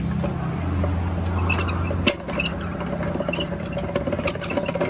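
An engine idling steadily, with a sharp metal knock about two seconds in and scattered light clicks as the rusty cast-iron gear head of a hand-cranked ice cream churn is handled and seated on its can.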